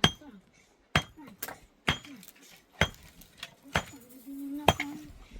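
Repeated sharp metallic clinks, about once a second, each ringing briefly.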